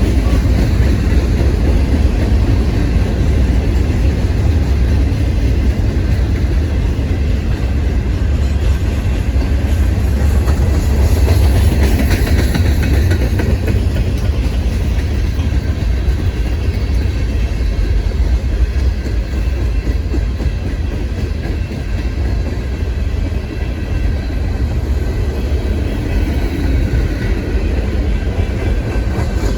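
Freight cars of a Union Pacific manifest train rolling past on the rails, a steady heavy rumble with wheel-and-rail noise. The high rail noise rises briefly about twelve seconds in.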